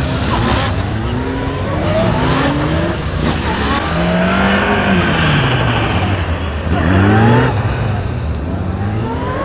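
Honda police motorcycle engine revving up and down over and over as the rider accelerates and brakes through tight course corners, with several quick rising sweeps.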